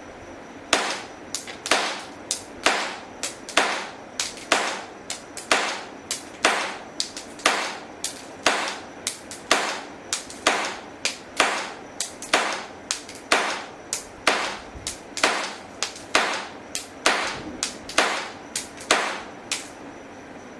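Tanaka SIG P226 blowback model gun firing 7 mm caps in cartridges: a long string of sharp cracks at about two a second, unevenly spaced, starting about a second in and stopping near the end.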